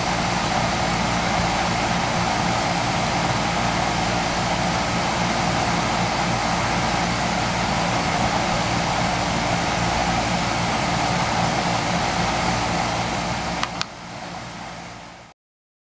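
Garden fountain running: a steady rush of splashing water over a low, even hum. Near the end there is a single sharp click, and the sound drops away.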